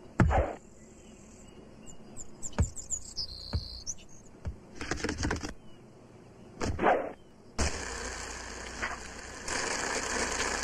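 Cartoon sound effects: a run of short knocks, chirps and swishes, then from about three-quarters of the way in the steady rolling rush of a skateboard's wheels on pavement.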